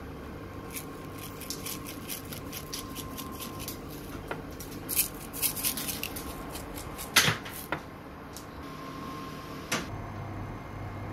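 Coloured sprinkles shaken out over glazed fried dough rings: a run of light, irregular ticks and rattles for several seconds, then a few sharper clicks, over a faint steady hum.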